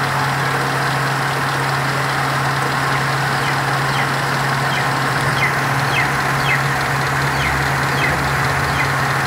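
Toyota 4A-F 1.6-litre carbureted 16-valve four-cylinder engine idling steadily. From about the middle on, a series of short, high, falling chirps sounds over the engine every half second or so.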